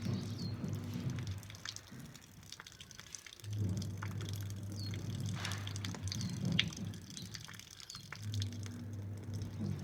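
Water pouring and dripping out of the nostril as a neti pot rinses the nose, coming in spells of a couple of seconds with quieter gaps between them.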